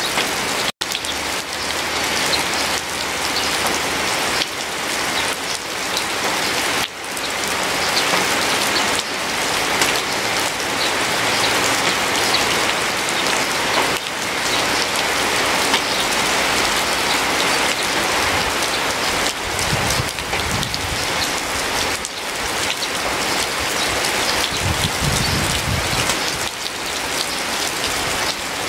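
Steady, heavy rain falling, a dense continuous patter of raindrops, cutting out for an instant under a second in.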